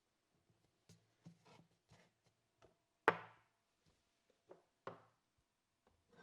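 A series of light knocks and clatters, about eight in all, irregularly spaced; the loudest, about three seconds in, has a short ringing tail.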